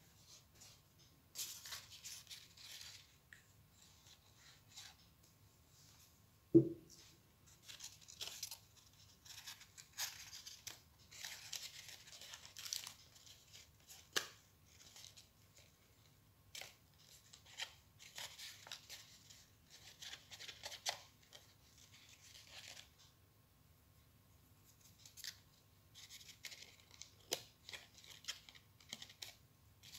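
Folded paper rustling and scraping in short bursts as fingers crease and press the points of a paper star, with small clicks between. A single low knock on the table, once about a fifth of the way in, is the loudest sound.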